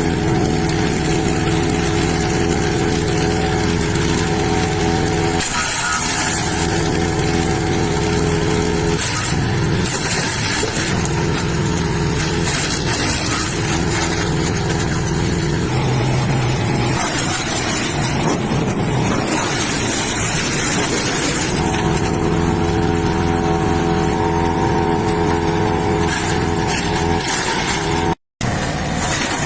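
Wood chipper running loudly with a steady engine note. Between about 9 and 21 seconds in, the steady note breaks up into rougher, uneven noise. The sound cuts out for a moment near the end.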